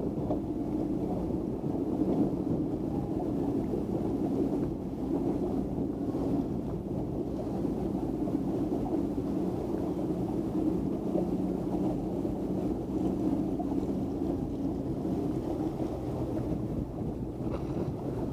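Flipper 630HT motorboat's engine running steadily at low speed: an even, unbroken hum.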